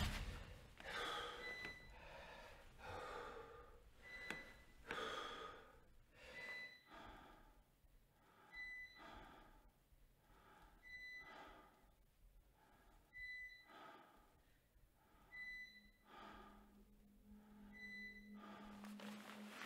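A man breathing heavily in quiet, ragged gasps, about one a second at first and slower later. Short, faint high beeps repeat about every two seconds behind the breathing, and a low steady hum comes in near the end.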